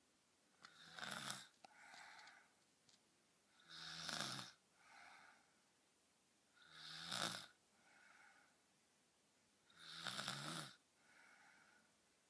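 A girl snoring in sleep: four loud, rasping snores about three seconds apart, each followed by a shorter, quieter breath.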